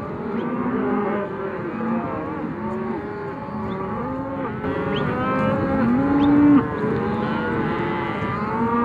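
A herd of cattle mooing, many calls overlapping throughout, with one louder, longer moo about two-thirds of the way in.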